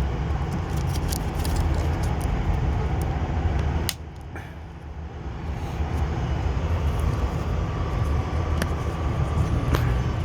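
A steady low rumble dips sharply for about two seconds partway through, then returns. Short light clicks run over it, from plastic clips being pressed and checked on a car's air filter housing.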